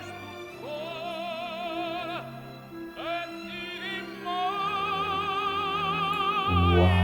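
Operatic tenor singing long held notes with wide vibrato over orchestral accompaniment, swelling louder near the end.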